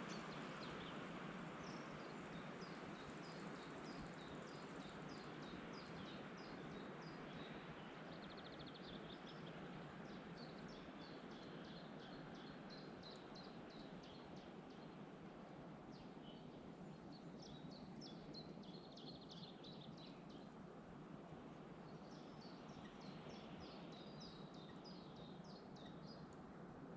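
Forest ambience: a steady wind hiss under songbirds singing runs of quick, high repeated notes, in several phrases with short pauses between them.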